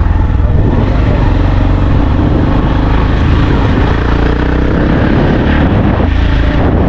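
Motor vehicle engine running while driving along a road, with a steady heavy low rumble of engine and road noise. The engine pitch climbs a little about halfway through.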